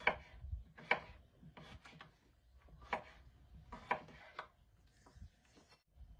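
Kitchen knife cutting raw, unpeeled potatoes into long strips on a wooden cutting board. Each slice ends in a sharp knock of the blade on the board, about six cuts roughly a second apart.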